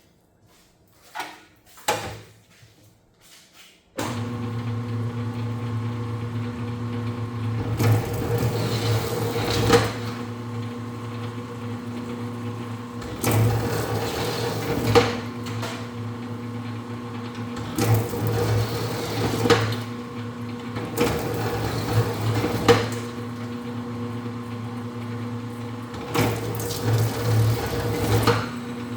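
A four-roller copper wire stripping machine switches on about four seconds in and runs with a steady motor hum. Every few seconds a louder, rougher stretch of a second or two comes as insulated copper wire is fed through the rollers and its insulation is slit.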